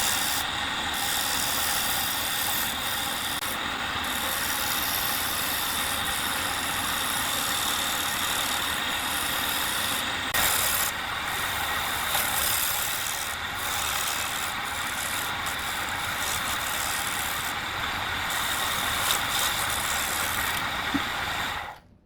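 An electric power tool running steadily on wood, with a steady whine in its noise, cutting off suddenly near the end.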